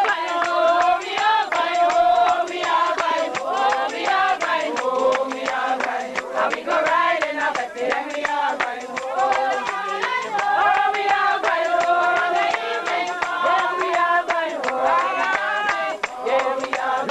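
A group of people singing together, many voices at once, with hand clapping throughout.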